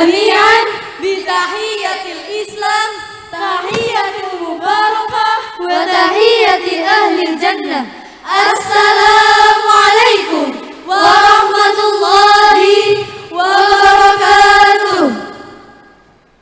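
A girls' choir singing and chanting in unison. It closes with three long held notes, each falling away at its end, and the last fades out.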